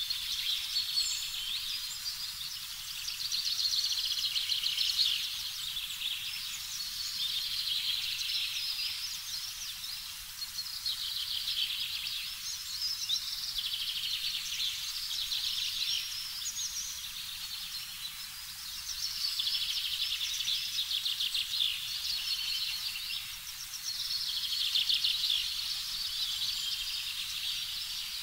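Repeated bouts of high, rapidly pulsed trilling chirps, each a few seconds long, rising and falling over faint low background noise.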